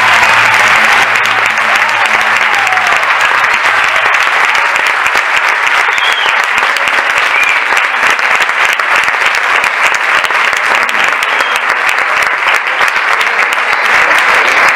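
Audience applauding steadily in a theatre, a dense continuous clapping, as the last notes of the dance music fade out in the first few seconds.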